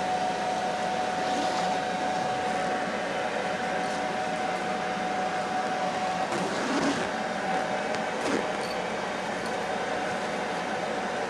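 Hot-air blower motor of an Air-O-Dry KD-111 portable clothes dryer running steadily, a rushing of air with a steady whine in it.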